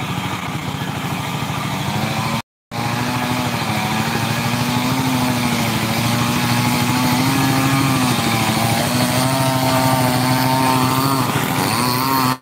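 An engine running steadily, its pitch wavering slightly up and down.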